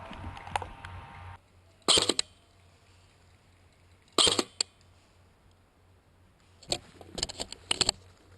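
Airsoft electric rifle, an ICS M4, firing short bursts of shots: two quick ones about two seconds in, another pair about four seconds in, and a longer string of rapid shots near the end. It opens with rustling that stops suddenly about a second and a half in.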